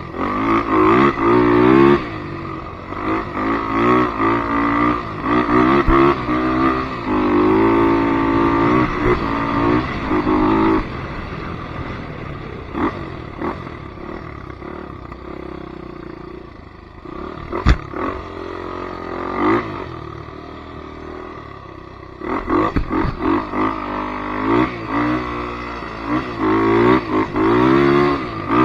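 Polaris Predator 500 ATV's single-cylinder four-stroke engine revving up and down again and again. It drops to a lower, quieter run for about ten seconds in the middle, then picks up again near the end. A single sharp knock comes a little past halfway.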